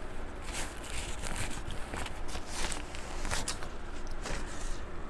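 King crab legs being eaten close to the microphone: an irregular run of small crackles and clicks from the shells and chewing.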